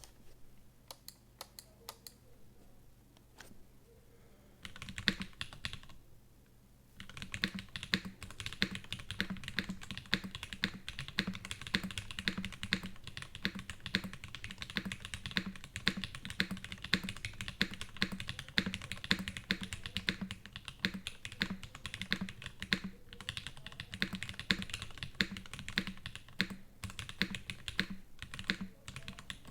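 Typing on a Geon F2-84 mechanical keyboard with Krytox-lubed SP-Star Nana switches, an aluminium plate and PBT keycaps. A few scattered key presses come first, then a short burst about five seconds in, then steady fast typing from about seven seconds on.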